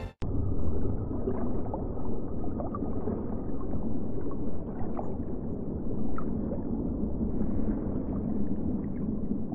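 Underwater ambience: a steady low rush and rumble of water with faint gurgling, and a few faint, brief high blips here and there.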